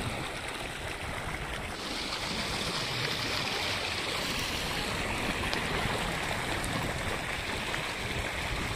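Water spilling over a low concrete weir in a steady rush, growing louder and hissier about two seconds in.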